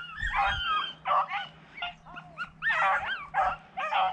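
A pack of beagles baying in quick, high yelping calls that overlap one another, about two or three a second: hounds giving tongue on a rabbit's trail.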